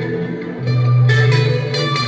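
Guitar playing a blues improvisation in B minor over a repeating backing loop from a looper pedal, with fresh notes struck about half a second and a second in.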